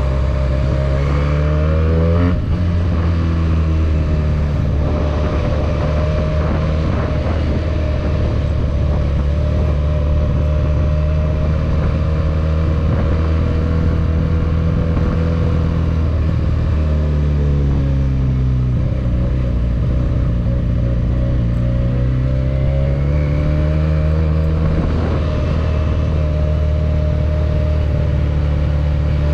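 Benelli 302S's parallel-twin engine on the move, heard from a camera on the bike. The revs climb and cut off sharply at a gear change about two seconds in, then hold steady. They drop away around the middle, climb again to another shift near the end, and settle into steady cruising.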